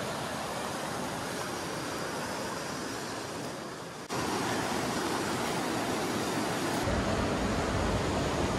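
Steady rushing of a waterfall. It cuts off about four seconds in and comes back louder, with a low wind rumble on the microphone near the end.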